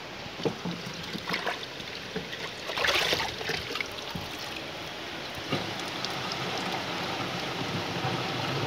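Water scooped from a bucket with a plastic watering can, with a louder sloshing burst about three seconds in, then poured into a stainless steel knapsack sprayer tank. The pour is a steady rush of water that starts about halfway and slowly grows louder.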